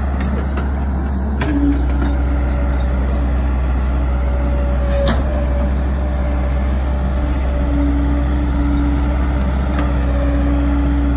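Caterpillar E120B tracked excavator's diesel engine running steadily under load as the boom and bucket work, with a whine that comes in briefly near the start and again for the last few seconds. A single sharp knock comes about five seconds in.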